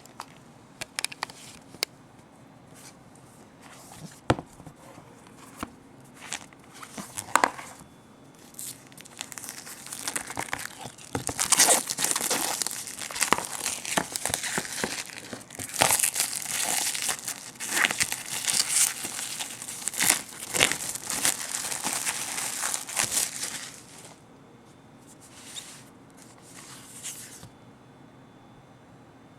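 Packaging of a wooden craft kit being handled and opened: scattered clicks and light rustles at first, then a long stretch of dense crinkling and tearing, easing into occasional rustles near the end.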